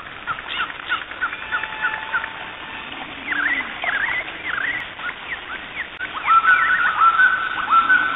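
Bird-like chirping calls, several at once. Short falling chirps give way to swooping calls, then to louder rising notes over a held whistle for the last couple of seconds.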